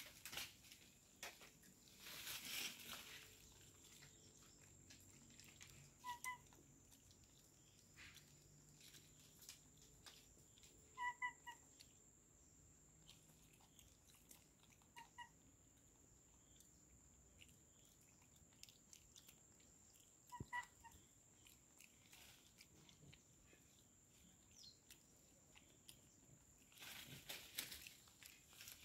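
Near silence, with faint rustling and crunching from a bonnet macaque eating and handling its food. A short pair of high pips sounds four times, roughly every four to five seconds.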